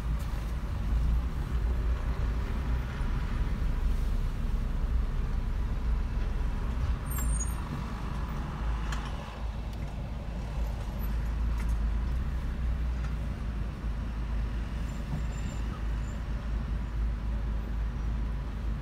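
Steady low rumble of a car's engine and tyres heard from inside the cabin as it moves slowly in traffic.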